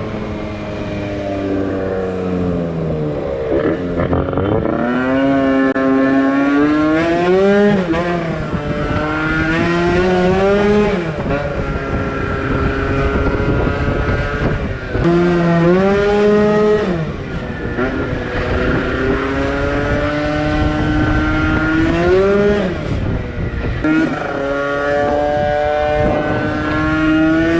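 Piaggio NRG MC2 scooter's two-stroke engine, bored out to 70cc, pulling hard on the move. Its pitch climbs under throttle and drops off sharply when the throttle is shut, again and again.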